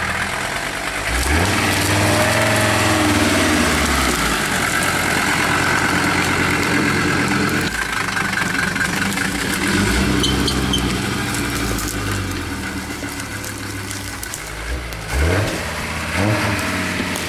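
Modified GAZ-69 4x4's engine revving as it drives over rough off-road ground. The revs rise about a second in and are held, ease off and pick up again twice, then come two quick blips near the end.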